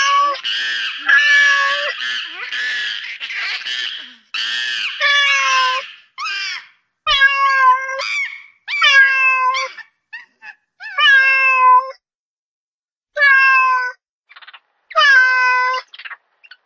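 Kitten meowing over and over: a quick run of calls about two a second at first, then single, longer meows every second or two with short silences between.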